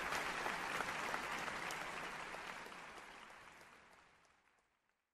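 Audience applauding, the clapping fading out over about four seconds.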